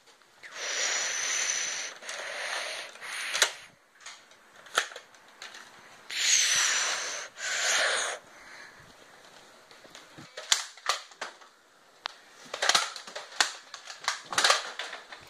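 Nerf blasters whirring in four bursts of one to two seconds each, a rushing hiss with a high whine over it. These are followed by a scatter of sharp clicks and knocks.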